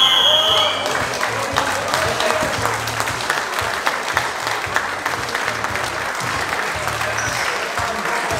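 Crowd applauding at the end of a wrestling bout. A steady high signal tone stops about half a second in, and the clapping goes on evenly after it.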